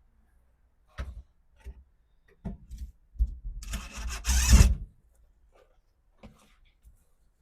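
Old car carpet being pulled up off the floor pan: a few knocks, then a loud rustling, tearing stretch of about a second and a half near the middle, followed by small knocks.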